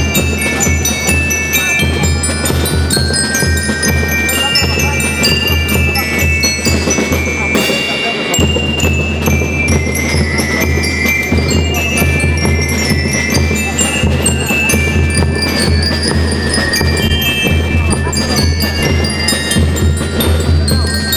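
A school rhythm band playing: bell lyres ring out a melody over bass drum, snare drums and a drum kit beating a steady rhythm. A brief crash about eight seconds in.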